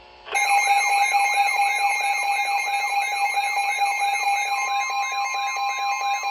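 Emergency alert for a tornado warning starting up: a warbling siren-like sweep repeating about two and a half times a second over steady alert tones, with another steady tone joining a little past halfway.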